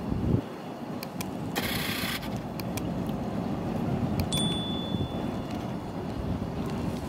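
Light clinks and a short high metallic ring as a knife and an enamel bowl are handled, over a steady low rumble of wind on the microphone.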